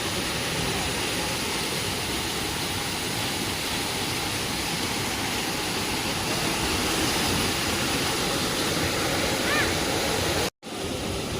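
Steady rushing noise, with a short high chirp near the end, broken by a sudden split-second dropout just before the end.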